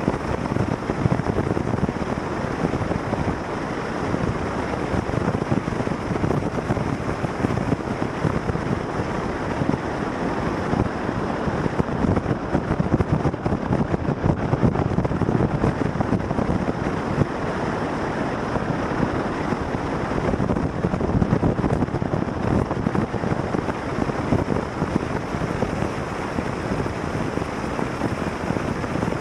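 A vehicle in motion: steady wind rushing over the microphone mixed with road and engine noise, with no clear engine note standing out.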